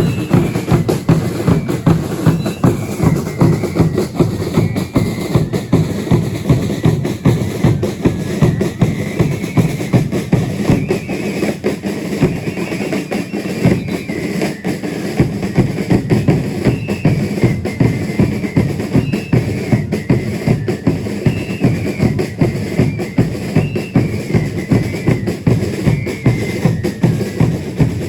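Procession drums of a religious dance troupe, bass drum and snare-type drums, beating a steady, even rhythm, with a high stepped melody running above them.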